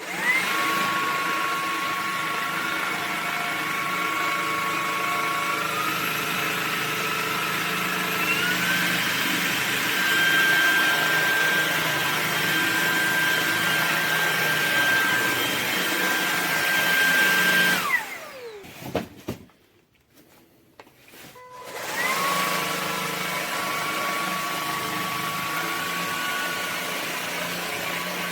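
Levoit cordless stick vacuum switching on and running with a steady whine whose pitch steps up twice in its first nine seconds. It is switched off about 18 seconds in, the whine falling away, then started again a few seconds later and keeps running.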